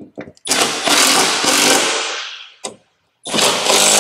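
Cordless 3/8-inch impact wrench with a 13 mm socket hammering as it tightens the nuts on the hood hinge studs, in two runs: one of about two seconds, then a second starting a little after three seconds in.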